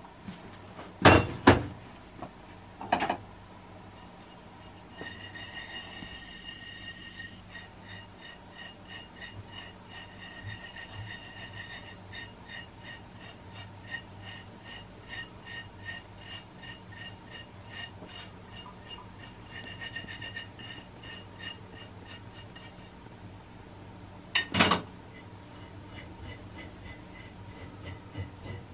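Kitchen tableware clinking: a few sharp knocks, then a long run of light, quick, ringing ticks like utensils against glass or ceramic dishes, and one more knock near the end.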